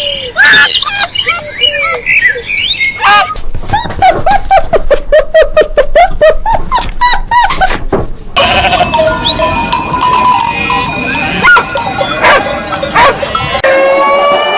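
A run of different farm-animal calls cut one after another. First come high chirping calls, then repeated short calls over fast clicking, then a stretch of steady bell-like tones. Near the end a rooster starts to crow.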